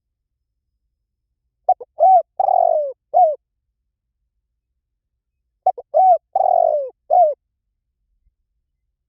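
Spotted dove cooing: two phrases about four seconds apart, each a quick lead note, a short coo, a longer drawn-out coo and a final coo, with clean silence between the phrases.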